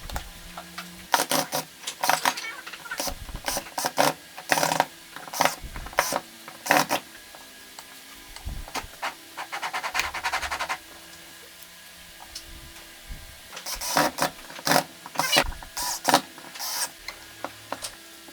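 Irregular sharp clicks and knocks, like parts and tools being handled, with a rapid ratcheting rattle lasting about two seconds near the middle.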